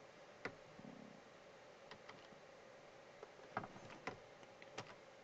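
Near silence: room tone broken by about half a dozen faint, short clicks at irregular intervals from a computer mouse.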